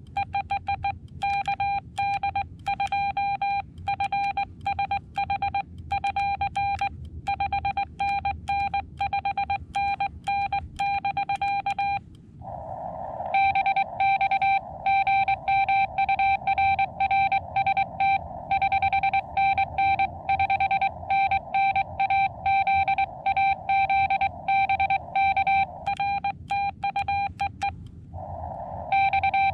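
Morse code (CW) from the Xiegu X6100 transceiver: a single-pitch tone keyed rapidly in dots and dashes. For the first twelve seconds this is the operator's own clean sidetone as he sends a signal report. Then the other station's reply comes in on the receiver, with a band of hiss running behind the tones, and a short stretch of hiss alone sits just before each reply.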